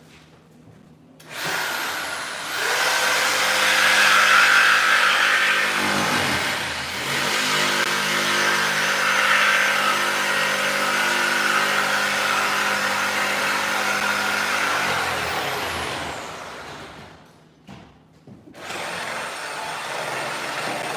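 A motor-driven machine running steadily, with a brief change around six seconds in, then stopping about three-quarters of the way through. A similar machine noise starts again near the end.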